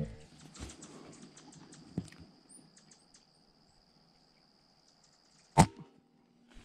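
A single air-rifle shot about two-thirds of the way in, the loudest sound, fired at a dove perched in the scope's crosshairs, which drops. Before it, a faint steady high insect trill.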